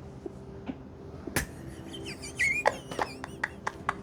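A single sharp crack about a second and a half in: a chiropractic neck adjustment releasing the cervical joints. Soon after come a high-pitched wavering squeal and a run of short quick sounds, the patient breaking into laughter.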